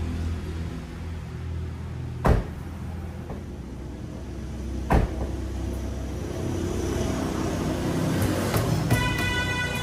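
The rear door of an MG car, its inner panel freshly lined with sound-deadening mat, is shut twice: two solid thuds about two and a half seconds apart. A few light clicks and a short steady tone follow near the end.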